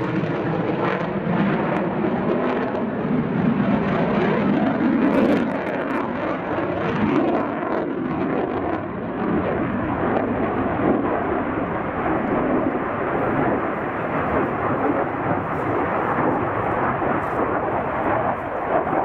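The JF-17 Thunder fighter's single Klimov RD-93 turbofan, running loud and steady as the jet flies its display manoeuvres. A shifting, phasing tone runs through the noise for the first couple of seconds.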